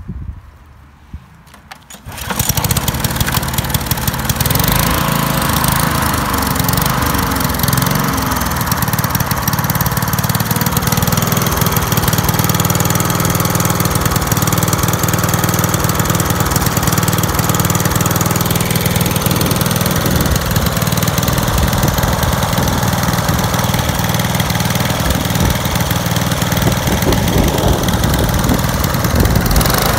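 Briggs & Stratton Quantum 4 HP single-cylinder engine of a 1995 Bolens lawn mower, fitted with a homemade five-chamber muffler with four outlet pipes, starting about two seconds in and then running loud and steady, its pitch wavering for several seconds before it settles.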